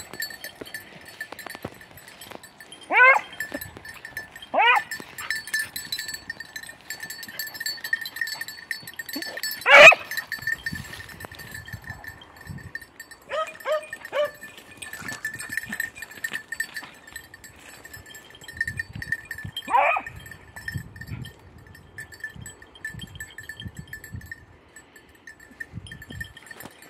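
Beagles giving tongue while working a hare's scent: short single yelps every few seconds, the loudest about a third of the way in, and a quick run of three about halfway. A thin steady high tone runs underneath.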